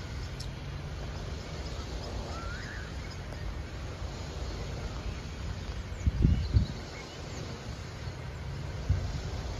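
Outdoor background noise: a steady low rumble, with one short bird chirp about two and a half seconds in and two low thumps, the louder about six seconds in and a smaller one near nine seconds.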